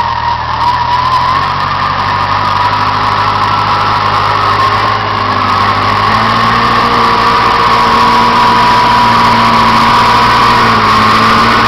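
Case 350B crawler dozer's engine running steadily under work, with a steady high whine over the low engine note.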